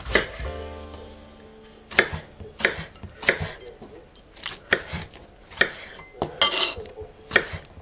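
Kitchen knife cutting tomatoes on a wooden cutting board: a run of sharp, separate knocks, roughly one every two-thirds of a second, starting about two seconds in. At the very start there is a single knock with a short ringing.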